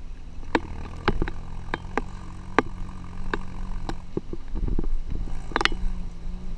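Off-road SUV's engine running steadily at low speed on a rough dirt track, with frequent sharp clanks and rattles from the bouncing vehicle, the loudest a short cluster about five and a half seconds in.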